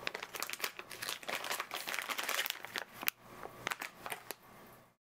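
Crinkly packaging of a foam microphone windscreen being handled and crumpled: an uneven run of sharp crackles that cuts off suddenly near the end.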